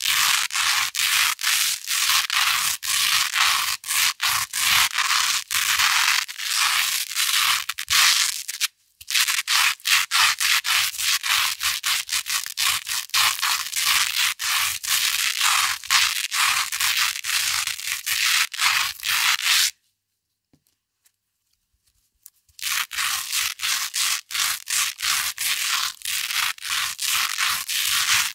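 Velcro hook tape scratched back and forth against loop tape in quick, crisp strokes, about three a second. The strokes break off briefly about nine seconds in and stop for two to three seconds about twenty seconds in before starting again.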